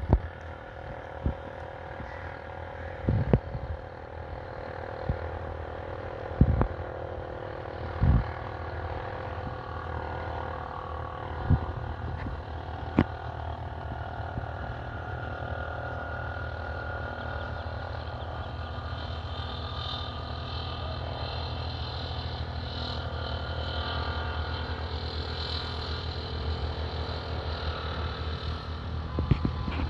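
A steady low mechanical hum, like a motor or engine running, with several short knocks in the first half.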